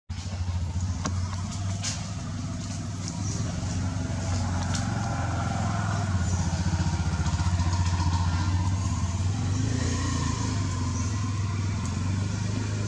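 An engine running steadily with a low, fast-pulsing hum that swells a little around the middle.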